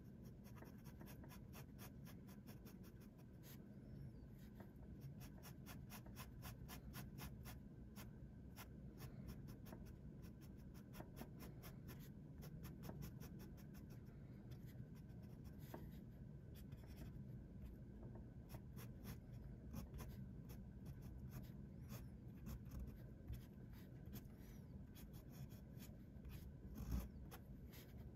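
Parker 50 Falcon fountain pen's integrated nib scratching faintly on paper in many quick, short hatching strokes, with a single soft knock near the end.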